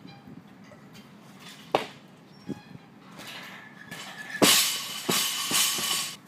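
Loaded barbell with bumper plates dropped from overhead after a snatch, crashing onto rubber flooring and bouncing twice. A sharp clank about two seconds in, as the bar is pulled.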